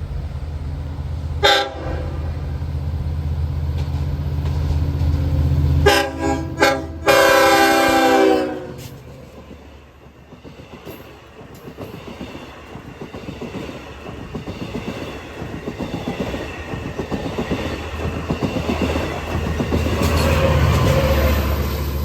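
A Long Island Rail Road diesel train sounds its horn for a grade crossing, over the low drone of the locomotive's engine. There is one short blast about a second and a half in, two short blasts around six seconds, then a long blast. After that the train passes, with a steady rhythmic clatter of wheels over the rail joints that swells again near the end.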